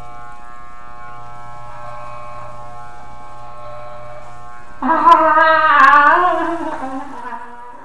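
Wahl Elite Pro electric hair clipper buzzing steadily as it shears curly hair close to the scalp. About five seconds in, a loud, drawn-out, wavering vocal cry comes over the buzz and fades away over two to three seconds.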